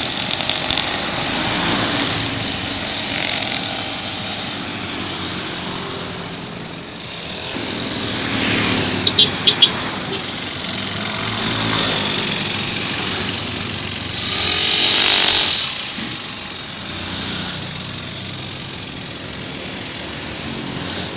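Petrol string trimmer (brush cutter with nylon line) engine running with a steady high whine, while road traffic passes; a passing vehicle swells loudest about fifteen seconds in. Three short sharp beeps sound about nine seconds in.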